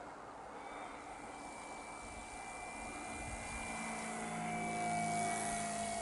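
Ben Buckle Great News vintage model aircraft flying past, its motor and propeller droning at a steady pitch, growing louder toward the end as it comes close.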